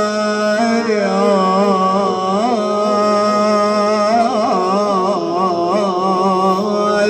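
Male reciter of a Shia lament singing a long wordless melismatic 'aah' (the lamenting sighs of the latmiya), the pitch winding up and down in ornaments, over a steady sustained drone note.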